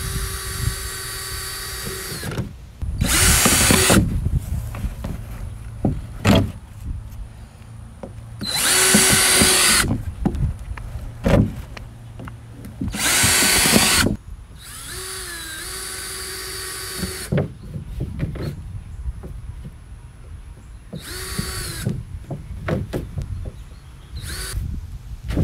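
Cordless drill boring holes through the bottom of a plastic kiddie pool, in about seven separate bursts of a second or two each. Some bursts are a steady motor whine, others louder and rougher as the bit cuts through the plastic.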